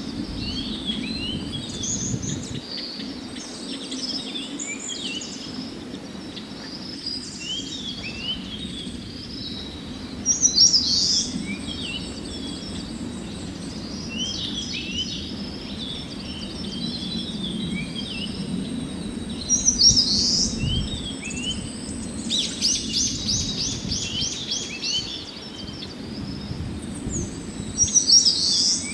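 Several wild birds chirping and singing, with a louder song phrase coming back roughly every ten seconds and a quick rattling trill in between, over a steady low outdoor rumble.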